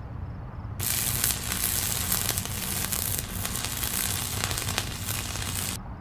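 Logo intro sound effect: a hissing, crackling noise that starts about a second in and cuts off just before the end, over a low steady drone.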